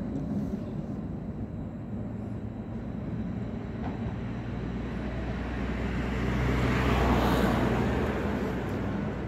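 Steady low rumble of traffic and rail yard, with a vehicle passing close by: a rushing noise swells to its loudest about seven seconds in and then fades.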